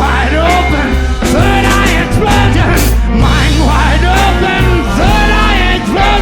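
Psychedelic blues-rock band playing an instrumental passage: a lead line with bending, sliding notes over steady bass and drums.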